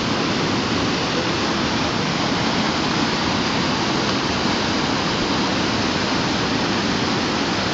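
Shallow river water rushing steadily over and between rocks.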